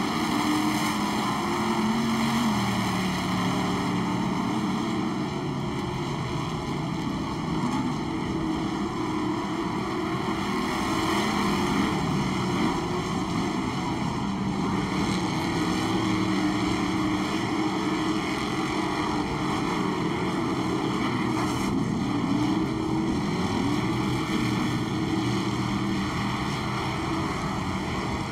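Off-road race truck engines running and revving on a dirt short course, their pitch rising and falling as the trucks accelerate and ease off through the corners.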